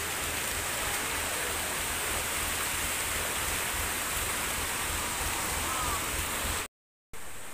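Steady rushing and splashing of floodwater as people wade through a flooded road, with a low rumble underneath. It cuts out abruptly for a moment near the end.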